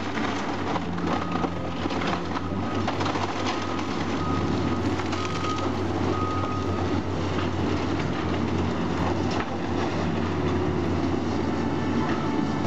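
Caterpillar tracked excavator's diesel engine running under load as its grapple tears into a wood-framed building, with constant cracking and crashing of splintering timber and falling debris.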